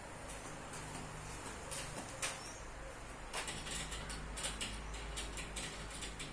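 Light clicks and knocks of wood and metal being handled at a sliding-table saw as a workpiece is set up. There is one sharper knock about two seconds in, then a quick run of small clicks.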